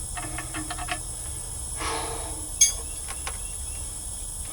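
Light metallic clicking and handling of tools and parts: a quick run of small clicks, then one sharp, ringing clink about two and a half seconds in, over a steady high-pitched insect chirring.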